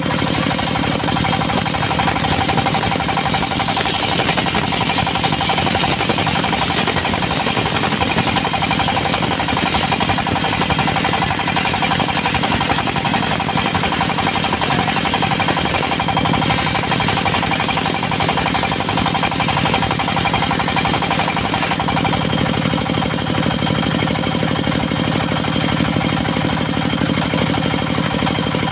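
Diesel engine of a portable circular sawmill running steadily, with a hum that grows heavier about three quarters of the way through.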